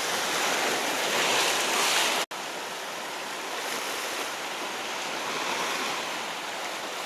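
Sea surf washing against a rocky shore, a steady rushing noise that is a little louder in the first two seconds. The sound cuts out for an instant a little over two seconds in.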